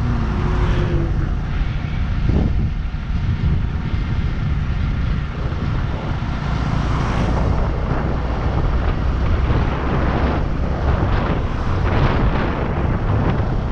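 Motorcycle running at riding speed, its engine drone buried under a steady, heavy wind rumble on the microphone.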